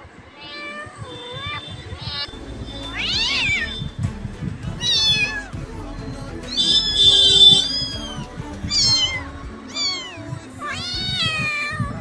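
Domestic cat meowing again and again, about eight separate calls that bend up and down in pitch, some short and some drawn out, over background music.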